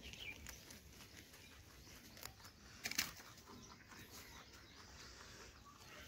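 Rabbits chewing carrots and carrot tops: faint, irregular crunching clicks and leaf rustling, with a louder crunch about three seconds in.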